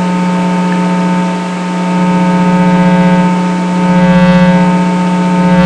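Loud, unexplained outdoor buzzing hum: a steady low drone with several higher tones over it, swelling louder and easing back a few times. It seems to come from everywhere around at once.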